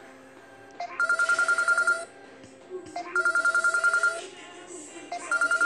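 Samsung phone ringtone: a rapid electronic trilling ring, heard three times, each burst about a second long with about a second between them.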